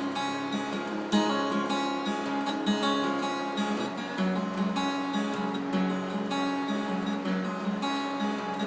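Acoustic guitar strummed alone, chords ringing in a steady rhythm with no singing.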